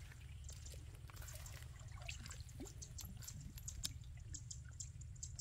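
Light splashing and dripping of pond water, with scattered small clicks and taps and a steady low rumble underneath.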